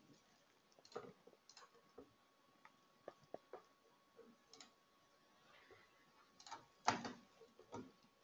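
Faint, scattered clicks and ticks against near silence, with a cluster of louder ones about seven seconds in.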